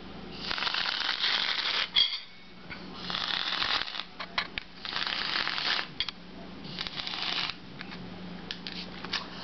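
Aerosol spray can hissing in four short bursts about a second long each, with small clicks between them.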